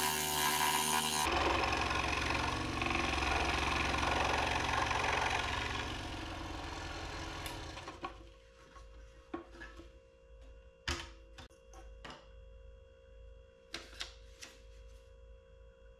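Performax scroll saw running and cutting a cedar fence picket: a dense, steady buzz of the reciprocating blade that dies away and stops about eight seconds in. After that come a few sharp knocks as the cut piece is handled.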